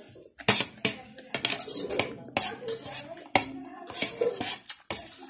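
A metal fork and spoon clinking and scraping against a plate while eating: about ten sharp clinks, spaced irregularly.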